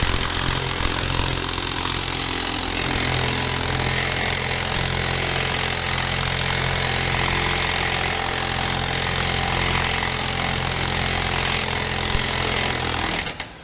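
Impact wrench hammering steadily on the CV axle nut at the front wheel hub, loosening it; it stops suddenly near the end once the nut is off.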